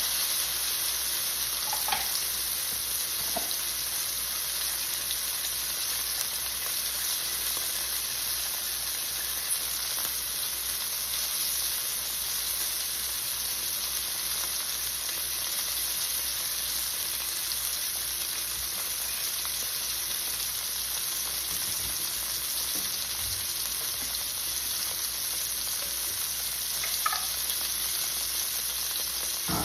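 Flour-dredged chicken breast pieces pan-frying in butter and oil, a steady sizzle, with a few faint clicks.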